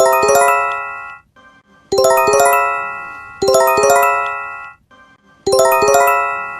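Electronic bell-like alert chime: a quick run of ringing notes that decays, repeated four times about every one and a half to two seconds.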